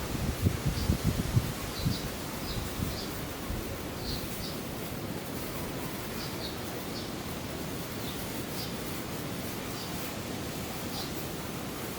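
Outdoor background hiss with short, high chirps from small birds every second or so; low rumbling thumps in the first two seconds.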